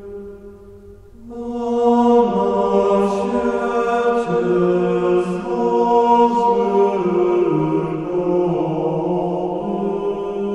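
Background music of slow, long-held notes in a chant-like style, changing pitch in steps. It is quieter at the start and swells back up about a second in.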